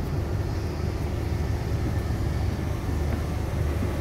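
Steady low rumble of a boat's engine running.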